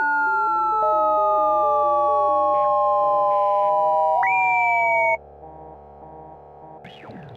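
Noise intoner (intonarumori) cranked by hand, giving a loud siren-like whine of a few clean tones that slowly fall in pitch. About four seconds in one tone leaps up, and just after five seconds the whine cuts off suddenly, leaving quieter stepped synth music that runs under it throughout.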